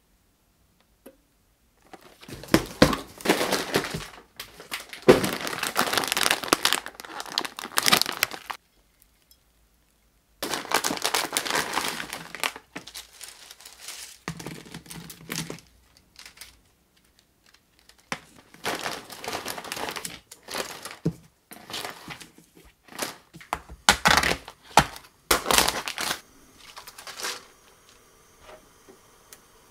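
Plastic packaging crinkling and rustling in irregular bursts separated by short silent gaps, as parcels and a bag of dried glass noodles are handled.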